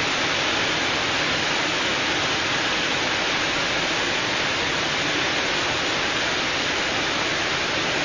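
Several thin waterfalls spilling over a rock ledge into a lake: a steady, even rush of falling water.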